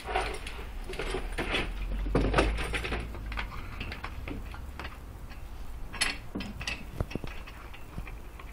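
A dog splashing water about in a bucket with its head and paws, with knocks and clatter against the bucket. The splashing is busiest in the first three seconds or so, then thins out to a few sharp knocks.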